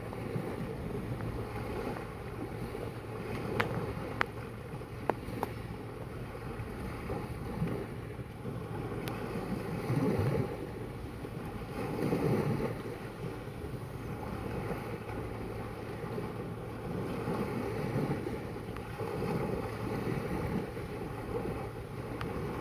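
Sea water washing and lapping, with wind buffeting the microphone. The water swells louder about ten and twelve seconds in, and a few sharp clicks come between about three and a half and five and a half seconds in.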